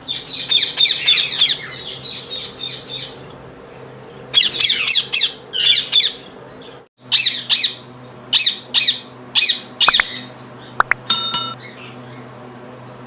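Indian ringneck parakeets squawking in quick runs of sharp, high calls with short pauses between, over a steady low hum.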